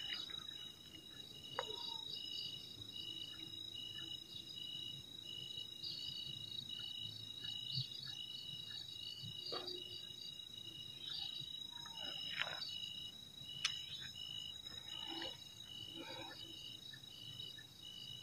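Night insects, crickets, calling: one steady high-pitched trill and a second high chirp repeating at an even pulse of roughly once a second. Scattered faint knocks and rustles come and go.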